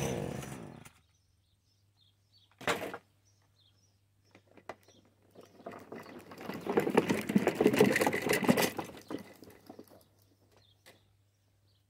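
A small petrol engine dies away and stops in the first second, and a single thump follows a couple of seconds later. Then an unpowered walk-behind lawn mower is pushed past over grass with footsteps, its wheels and body rattling and rustling, loudest in the middle and fading away.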